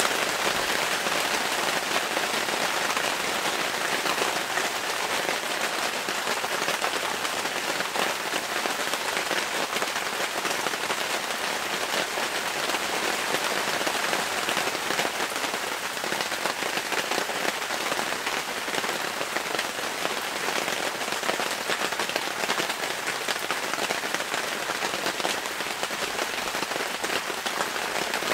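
Steady rain falling, a dense even hiss of many small drop hits that keeps up without a break.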